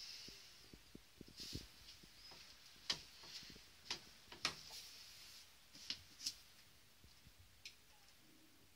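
Faint, irregular clicks and ticks of handling while a polypropylene pipe and fitting are held on a pipe welding iron's heated nozzle.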